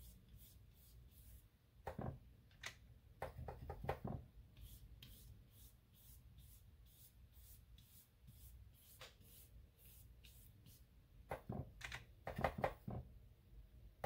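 Flat watercolor brush brushing a wet wash across paper, faint, with scattered light taps and clicks. A louder run of taps near the end as the brush is worked in the watercolor pan.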